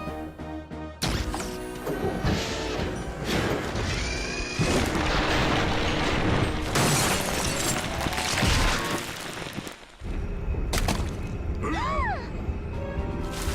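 Cartoon soundtrack. Background music is cut about a second in by a sudden loud crash with shattering. Several seconds of loud crashing noise follow, then the music returns near the end, with a brief squeal that rises and falls.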